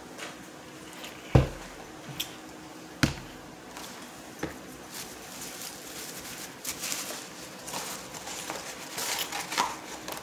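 A plastic cup of iced drink set down with a loud thud on a wooden table, followed by a second, lighter knock. After that come a few seconds of short rustling and crackling from food packaging being handled.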